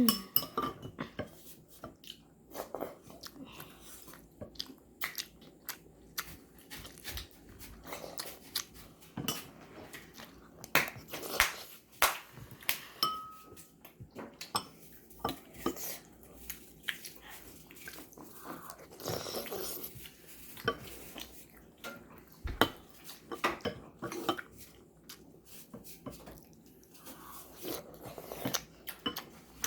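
Eating a bowl of galbitang: spoon and chopsticks click and knock against the bowl at irregular moments, with chewing in between.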